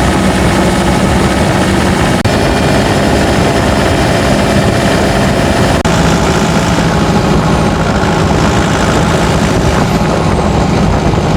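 Turbocharged diesel pickup engine pulling steadily under load up a steep grade, a loud, even drone whose pitch drops slightly about six seconds in.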